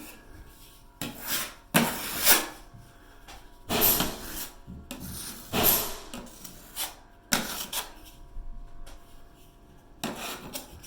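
Drywall knife scraping stiff, unthinned old joint compound across the wall in about six separate strokes, each a short scrape with a pause between; the thick mud is dragging under the blade.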